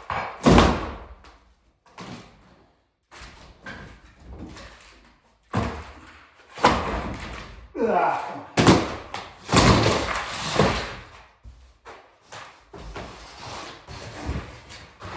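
Wall demolition: paneling and wooden framing being struck and torn loose in a series of heavy bangs and crashes. About eight seconds in there is a brief falling squeak.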